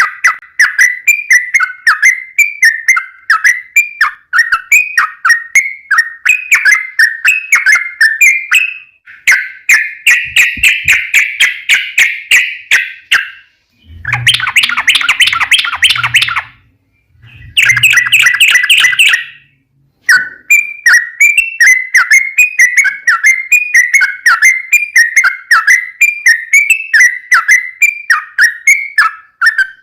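Yellow-vented bulbul (trucukan) singing a long, fast run of short chattering notes, loud and a little harsh. Midway the song turns denser and rougher for a few seconds, with brief pauses, before the quick chatter returns.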